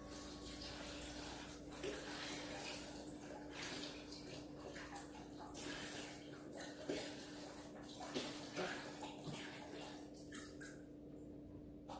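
Chicken broth pouring from a carton into a large pot, an uneven splashing stream that dies away near the end, over a steady low hum.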